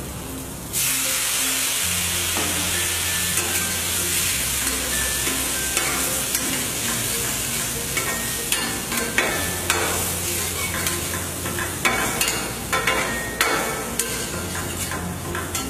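Spiced onion, soya paneer and green pea stuffing sizzling in an oiled pan. The hiss starts suddenly about a second in as a little water goes in, and a spatula stirs and taps against the pan with a run of sharp clicks through the second half.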